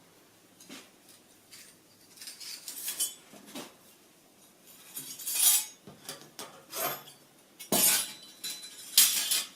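Metal parts of a beer can chicken stand kit clinking and clattering as they are handled and packed, in several separate bursts with the loudest near the end.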